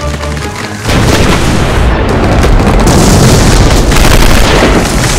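Music with held notes gives way about a second in to a sudden, loud, dense wall of explosion and gunfire sound effects with a deep rumble, which stays loud throughout.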